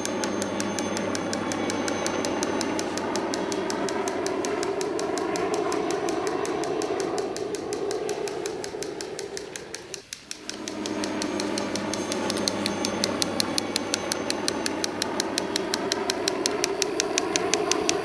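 Battery-powered toy helicopter running, its small motor and plastic gears whirring with a fast, even ticking as the rotor spins. The sound fades briefly about halfway through, then picks up again.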